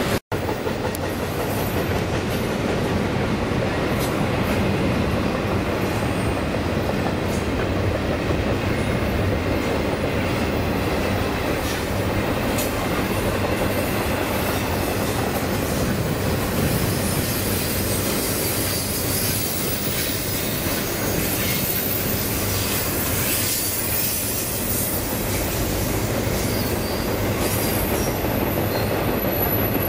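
Freight train rolling by: a steady rumble of steel wheels on rail with scattered clicks from rail joints, and a thin high wheel squeal in the second half.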